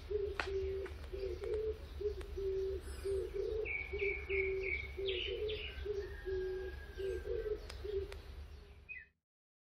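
Dawn birdsong: a dove cooing over and over in short phrases of low notes, with a brief run of higher chirps from a smaller bird midway, over a low steady rumble. The sound cuts off about nine seconds in.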